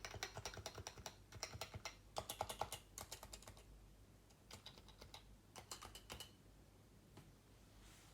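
Typing on a stock Leopold FC660C keyboard with Topre electro-capacitive switches. A fast, steady run of keystrokes for the first three and a half seconds, then a few short bursts of keys that thin out toward the end.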